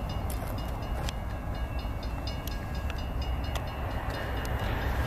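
Low, steady rumble of a freight train's diesel locomotives, with a faint, rapid high ticking about four times a second; it grows louder near the end.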